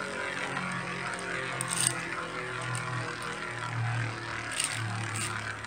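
Two Hasbro Beyblade Burst spinning tops whirring in a plastic stadium: a steady low hum that wavers in pitch, with a few light clacks as they knock together.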